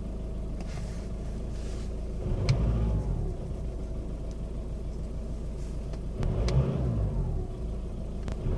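2007 Skoda Octavia vRS 2.0 TDI PD 170 four-cylinder diesel idling rough with a misfire, the owner suspecting an injector problem. It is revved briefly twice, about two seconds in and again about six seconds in.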